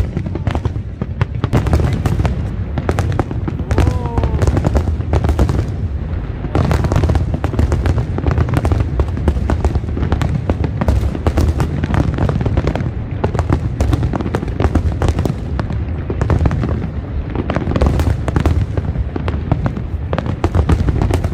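Fireworks display: a continuous barrage of bangs and crackling reports over a steady low rumble.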